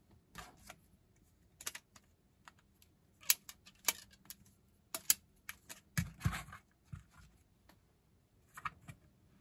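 Hard 3D-printed plastic parts clicking and tapping against each other as they are handled. The clicks are irregular and scattered, with a few heavier knocks about six seconds in.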